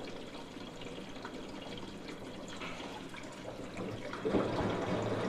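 Water running into an LG FHT1006HNW front-loading washing machine as it fills for a tub-clean cycle, with a dissolved descaling-powder solution poured into its detergent drawer. The water sound gets louder about four seconds in.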